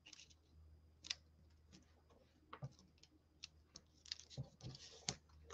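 Faint paper handling: scattered light taps and clicks as fingers press a small cardstock piece into place on a card, with a short burst of paper rustling about four seconds in.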